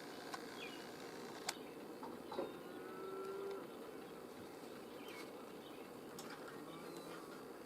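Faint, steady outdoor hiss with scattered faint bird chirps, a few sharp clicks, and a short held animal call about two and a half seconds in.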